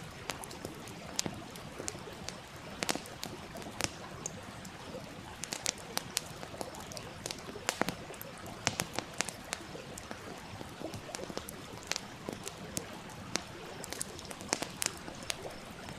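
Campfire crackling, with frequent irregular sharp pops, over the steady rush of a flowing stream.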